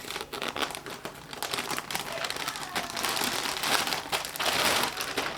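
Packaging crinkling and rustling in the hands, dense and irregular, growing louder near the end, as purchased clothes are unwrapped.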